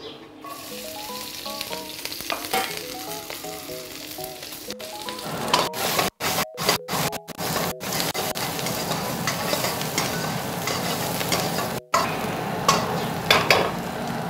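Diced carrots, green beans and onion sizzling in hot oil in a wok as they are stir-fried. The sizzle grows louder about five seconds in, is broken by a few brief silent gaps, and has a few sharp clicks near the end.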